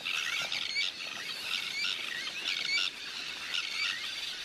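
A flock of sandwich terns calling over their breeding colony: many harsh, grating calls overlapping, a louder one standing out about once a second. It is the clamour of terns put up off their nests.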